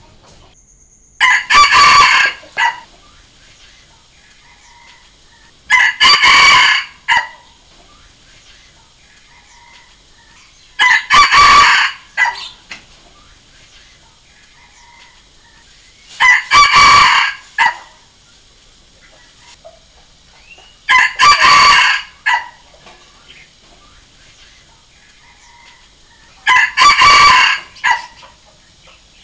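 Rooster crowing six times, each crow about a second and a half long, coming roughly every five seconds. It is a repeated junglefowl-style decoy crow of the kind played to draw wild junglefowl roosters to answer.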